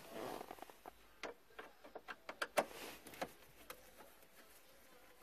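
Scattered light clicks and taps of a tool and gloved hand working at the factory radio's Phillips mounting screws in the minivan's plastic dash. The clicks come irregularly, a dozen or so over a few seconds, and die away in the last second or so.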